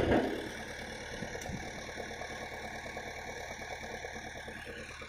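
Diesel engines of a tractor and a JCB 3DX backhoe loader idling steadily. A sharp knock right at the start, the loudest thing here, dies away quickly.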